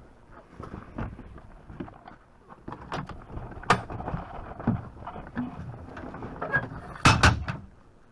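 Irregular knocks, bumps and scrapes from someone climbing up the side of a boat on its land stand, over faint wind noise on the microphone. A sharp knock comes just before halfway, and a loud double thump comes near the end.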